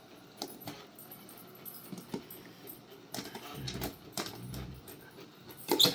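A dog tussling with a Roomba robot vacuum: scattered clicks and knocks of claws and teeth on the plastic, with a low steady rumble in the middle and a louder clatter of knocks near the end.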